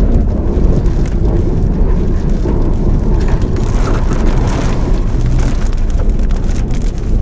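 Strong wind from a nearby tornado buffeting the microphone: a loud, deep rumble that surges and eases in gusts.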